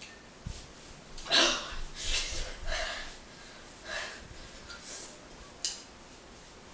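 A woman breathing hard through her mouth in a few short, sharp breaths and gasps, the strongest about a second and a half in, reacting to her mouth burning from very spicy noodles.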